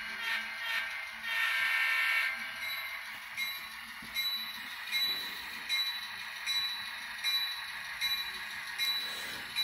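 Sound decoder of an N-scale Atlas GP38-2 diesel locomotive playing its horn: two short blasts, then a longer one ending about two seconds in. After that the locomotive's bell rings steadily, about once every three quarters of a second.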